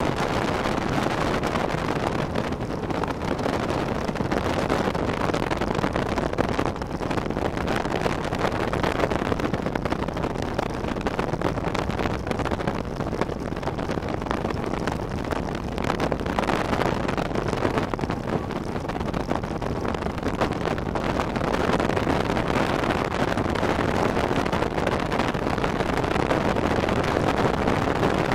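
Bass boat running at speed on open lake water: a steady rush of wind buffeting the microphone over the outboard motor and water noise.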